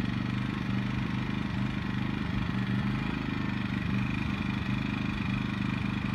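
Generac iQ2000 inverter generator's small engine running steadily in eco mode, heard close up at the unit, where it reads about 74 decibels.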